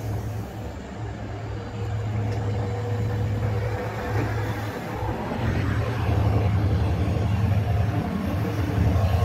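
EMD WDP4D diesel locomotive's two-stroke V16 engine working hard as it accelerates a passenger train, a low steady hum growing louder as the train approaches.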